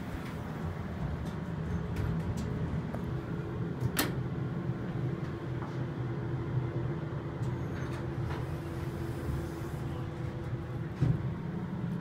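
Inside the car of a Dover traction elevator: a steady low rumble with a faint steady hum while it runs. A sharp click comes about four seconds in and a knock near the end.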